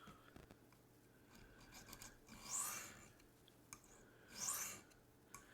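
A D2 steel knife blade drawn across a sharpening stone: two faint swishing strokes, about two seconds apart, with light rubbing before them.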